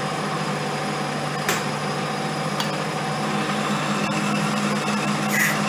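Homemade metal lathe running steadily while a boring bar takes a roughing cut inside the bore of a sleeve: a steady machine hum, with a short click about a second and a half in and a brief squeak near the end.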